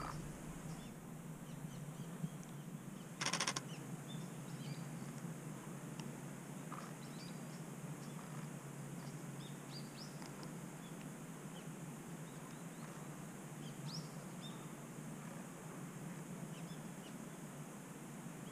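Faint, scattered chirps of small birds over a quiet outdoor background. About three seconds in, a Nikon Z6 II camera's shutter fires a short, rapid burst of clicks.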